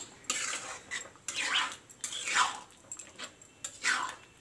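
Metal spatula stirring thin, watery curry gravy in a kadai: about five wet swishes and scrapes, roughly one every 0.7 s, as freshly added water is mixed into the masala.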